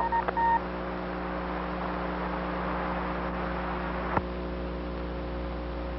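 Open radio channel between transmissions: steady hiss with electrical hum, a steady beep tone that stops about half a second in, and a single click about four seconds in.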